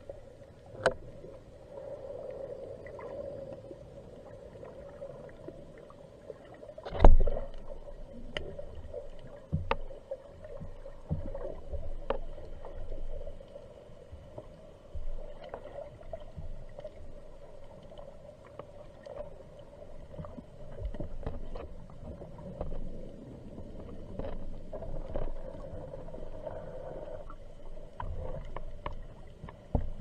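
Underwater sound at the surface picked up by a camera in a waterproof housing: water sloshing and gurgling over a steady hum, with scattered clicks and knocks as the diver fins and moves, and one loud thump about seven seconds in.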